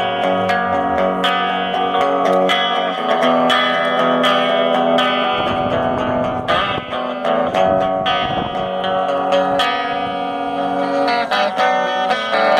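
Guitar playing the instrumental introduction to a song, with picked and strummed chords that change every second or two.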